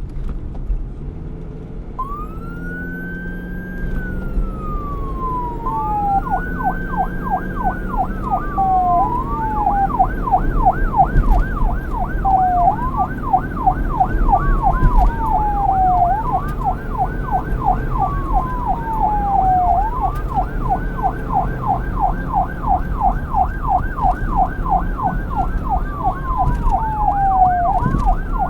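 Electronic police car siren starting about two seconds in, switching back and forth between a slow rising-and-falling wail and a rapid yelp, over low road and engine noise.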